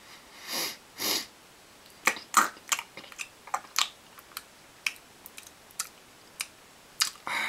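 Two soft breathy swishes, then an irregular run of sharp little clicks and taps from handling a headphone measurement rig with an artificial silicone ear.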